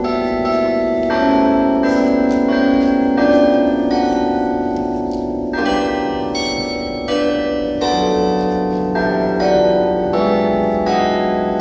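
Church tower bells ringing: several bells struck one after another in a changing sequence, each ringing on so that their tones overlap.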